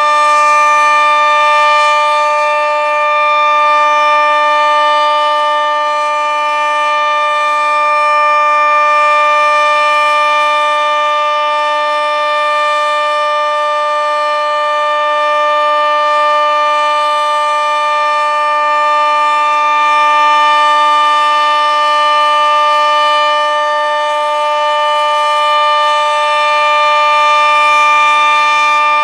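Sentry 40V2T two-tone outdoor warning siren sounding the steady alert signal of a tornado-siren test: a held, unwavering chord that swells and fades in loudness every several seconds.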